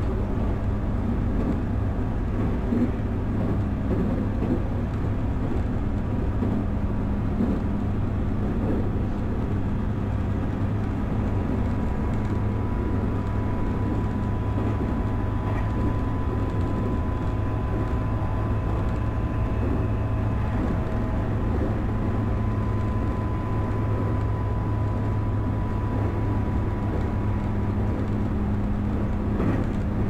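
Electric commuter train running along the track, heard from behind the driver's cab: a steady rumble of wheels on rail with a low hum, and a faint high whine that comes in partway through and holds.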